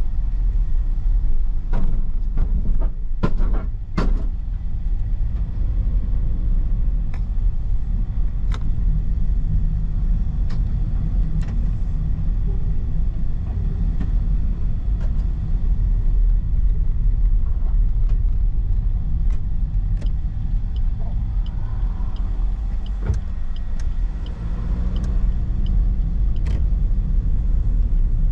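A car running with a steady low rumble. A cluster of sharp knocks comes about two to four seconds in, and scattered single clicks follow.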